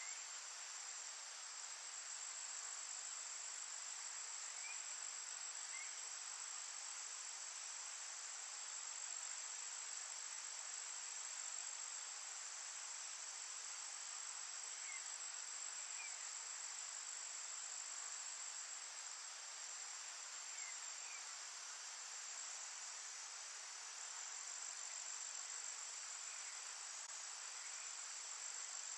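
Crickets trilling in a steady, high-pitched chorus, with a few faint short chirps here and there.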